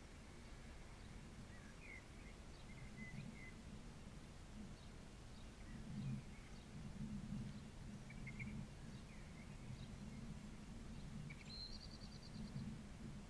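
Faint outdoor ambience: birds give scattered short chirps, and a quick trill comes near the end, over a low, uneven rumble that swells about halfway through.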